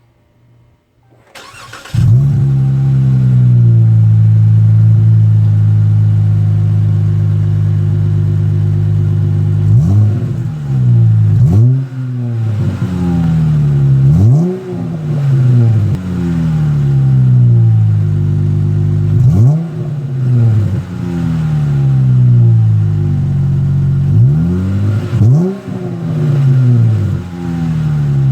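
A 2016 Dodge Challenger SXT Plus's 3.6-litre V6, fitted with aftermarket Max Flow 1256 mufflers and a resonator delete, is started: a brief crank, then it catches about two seconds in. It holds a steady idle, then from about ten seconds in is blipped again and again, each rev rising sharply and sinking back to idle.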